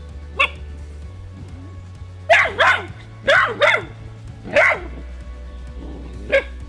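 Cane Corso puppy barking in seven short, sharp barks, several in quick pairs, with the loudest in the middle, over a low background music bed.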